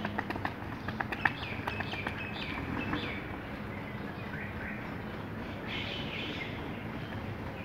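Rapid, light footfalls of trainers on asphalt stepping through an agility ladder, a quick run of taps in the first three seconds, the sharpest about a second in. Small birds chirp throughout.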